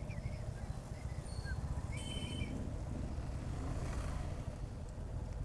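Motorcycle riding in traffic, heard through a bike-mounted action camera: a steady low rumble of engine, road and wind on the microphone. A brief high beep sounds about two seconds in.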